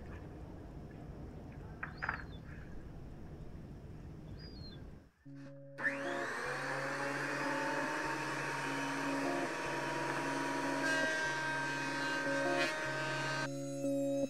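A few short bird chirps over outdoor background noise, then a Craftsman benchtop thickness planer spins up with a rising whine about six seconds in and runs for about eight seconds as a weathered driftwood pine board is fed through, stopping shortly before the end. Steady low music tones play under the planer.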